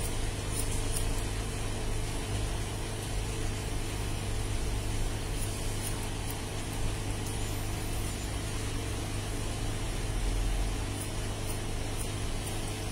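A steady low machine hum, with scattered faint, sharp snips of hair-cutting scissors closing on wet hair.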